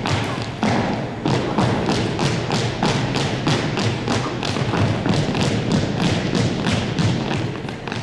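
A drill team's shoes striking a hardwood floor in unison as they march in cadence, about three sharp steps a second.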